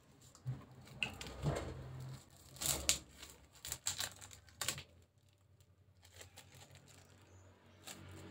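Blocks of tempe in plastic wrap being handled and cut with a knife on a plastic cutting board: crinkling of the wrap and knife contact with the board, in scattered short bursts over the first five seconds, then quieter with one click near the end.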